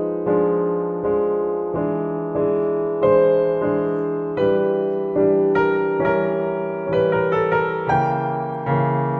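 Background music: a slow, gentle piano piece, notes and chords struck about once or twice a second and dying away between strikes.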